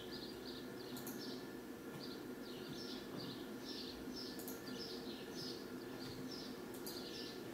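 Faint, regular chirping, about two chirps a second, over a low steady hum, with a few soft clicks.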